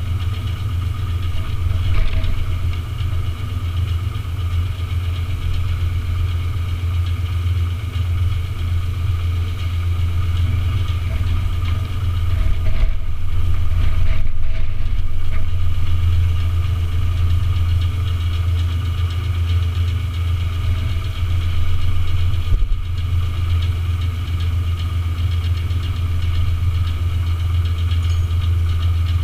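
An engine idling steadily close by, a constant low hum that does not rise or fall.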